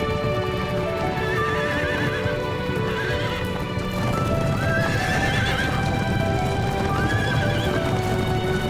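Horses whinnying about four times in wavering, warbling calls over a herd's hoofbeats, with background music playing throughout.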